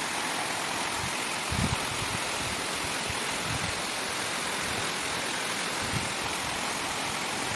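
Waterfall rushing: a steady, even noise of falling water, with a few brief low thuds, the strongest about a second and a half in.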